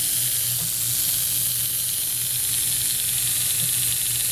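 Freshly rebuilt Marx 666 toy-train locomotive motor running on the bench on its first test run, before oiling: a steady, high hiss from the spinning armature and brushes over a low hum.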